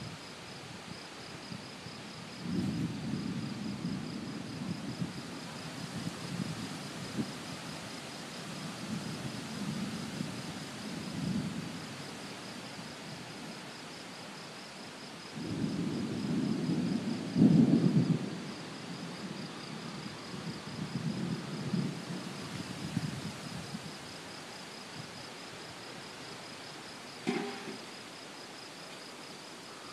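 Thunder rumbling in two long rolls, the second louder and peaking about halfway through, over steady cricket chirping. A brief sharp sound comes near the end.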